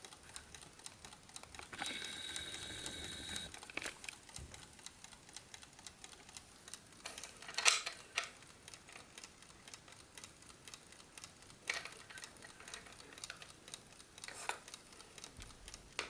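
Mechanical wind-up chess clock movement ticking steadily and quietly, with a few louder clicks and knocks of small clock parts being handled.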